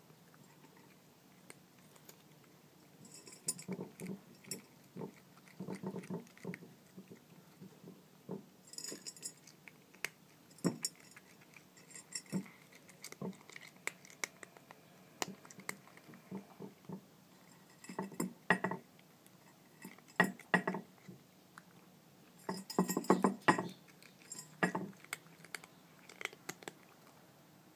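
A kitten crunching dry kibble from a white ceramic compartment dish: irregular bursts of crisp crunches and light clinks against the dish, separated by short pauses, with the densest, loudest run of chewing late on.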